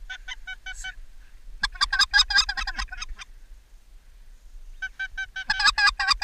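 Goose call for white-fronted geese blown in three quick runs of short, high honking notes with clucks, imitating white-fronted geese to draw passing birds in.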